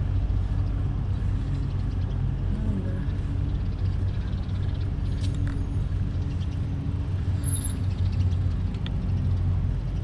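Steady low hum and rumble of the small vehicle carrying the camera as it moves along.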